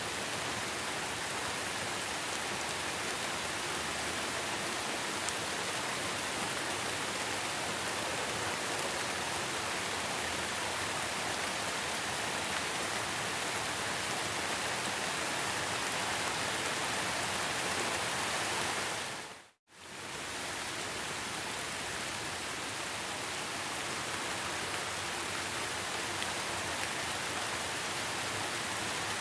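Heavy rain falling steadily, a dense even hiss of drops. About two-thirds of the way through it fades out to silence and fades back in within about a second.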